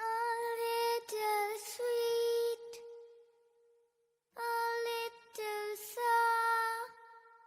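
Music: a short high melody of held, sung or played notes, one phrase fading out and then repeating about four seconds later.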